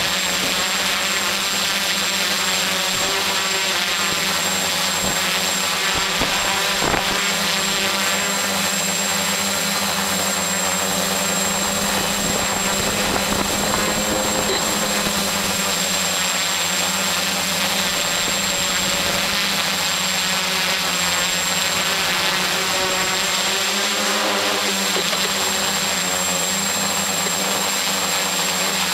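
Motors and propellers of an AeroQuad quadcopter running steadily in flight, heard up close from a camera on board, with a steady high whine over a dense buzzing hum.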